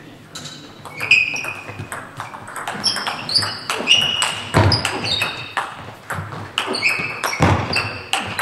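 Table tennis rally: sharp clicks of the ball off the bats and short ringing pings as it bounces on the table, coming irregularly several times a second. Two heavy thumps stand out, about halfway through and near the end.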